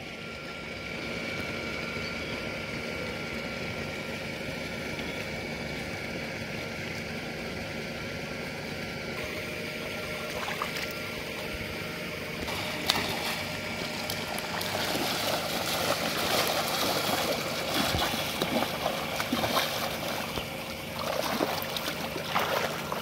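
Shallow muddy water splashing as a boy grabs at a thrashing carp by hand, starting about halfway through and growing busier toward the end. Before that, a steady faint hum with water noise.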